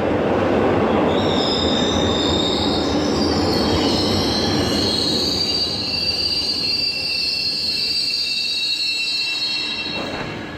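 Subway train running on the rails over a steady rumble, its wheels squealing in several high, slowly shifting tones.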